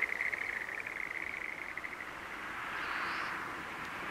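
A fast, pulsing trill of a calling animal from the fields, which fades out about two seconds in, giving way to a rising outdoor hiss with a single short high chirp.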